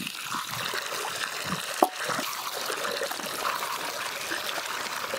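Water trickling and splashing in a large aluminium basin as hands wash pieces of raw goat meat, with one brief knock just under two seconds in.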